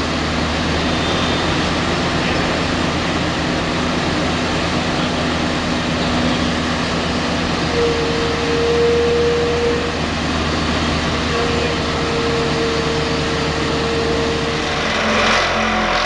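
Excavator-mounted vibro hammer vibrating a steel sheet pile down into the ground, a steady mechanical drone together with the Kobelco excavator's diesel engine and hydraulics under load. A whine in the sound steps up in pitch about eight seconds in.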